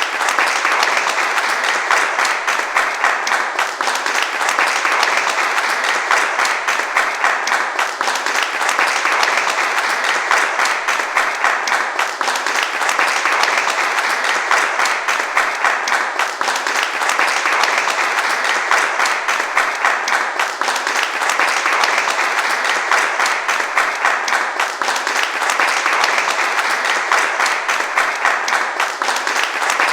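Steady, sustained applause from a large crowd: many hands clapping densely together, with gentle swells every few seconds.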